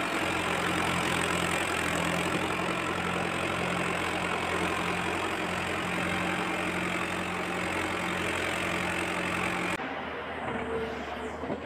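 Tractor engine idling sound, a steady running hum with a knocking edge, laid as a sound effect over toy tractor play. Near the end it cuts off abruptly, and a quieter sound with a steady high whine takes over.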